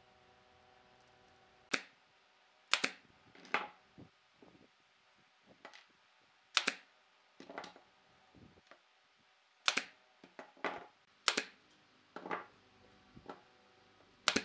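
Thin wooden strips clacking and snapping against each other and a wooden disc as they are pressed and fitted into place by hand, in irregular sharp clicks and knocks. Near the end there is one louder sharp crack as a pneumatic stapler is fired into the disc.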